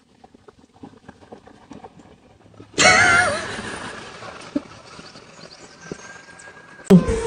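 Faint scattered clicks, then, about three seconds in, a sudden loud animal call with a wavering pitch lasting about half a second, trailing off into a noisy fade. Another loud sound starts abruptly near the end.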